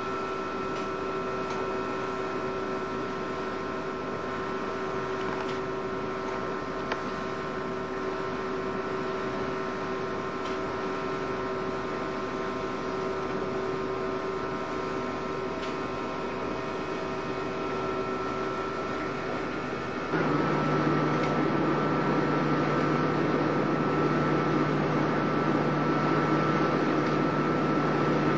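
A boat's engine running steadily with a constant multi-tone drone, heard on board. About twenty seconds in the sound changes abruptly, becoming louder and rougher with a lower hum added.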